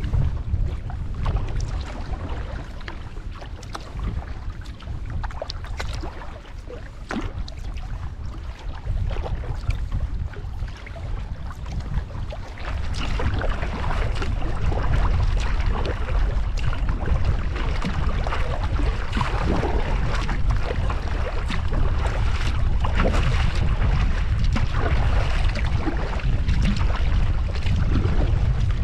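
Wind buffeting the microphone on an open lake, a constant low rumble that grows louder about halfway through, with choppy water splashing against the canoe and the paddle dipping. The canoe is heading into a headwind in the rain.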